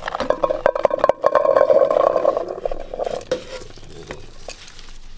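Small red huckleberries poured from a plastic container into a metal camping pot, making a fast clatter of many little hits with the pot ringing under them. It lasts about three seconds, then dies away.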